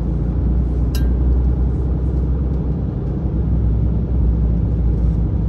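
A vehicle driving slowly on asphalt, heard from inside the cabin: a steady low rumble of engine and tyres. A single sharp click comes about a second in.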